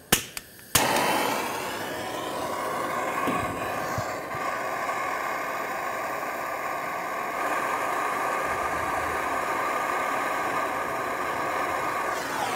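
Bernzomatic handheld gas torch lighting with a couple of sharp clicks about a second in, then its flame hissing steadily. The flame is heating a crankshaft pulley bolt to soften the thread locker on it.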